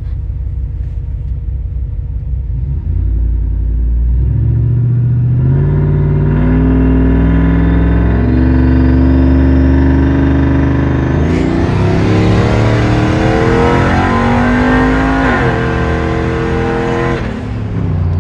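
Camshaft-upgraded 5.7 L Hemi V8 heard from inside the cab: it idles and is held at raised revs while staging. It then launches hard at full throttle about two-thirds of the way in, its pitch climbing steadily through the first gear. It upshifts with a drop in pitch and then backs off near the end.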